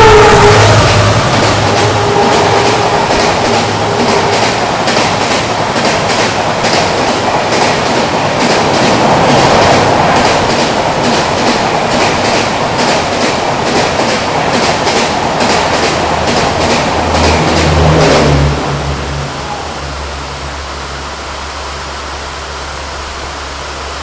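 Indian Railways express train with LHB coaches passing at full speed: a loud rush of wheels on rail with a regular clickety-clack over the rail joints. About eighteen seconds in the train's sound falls away, leaving a steady hiss of heavy rain.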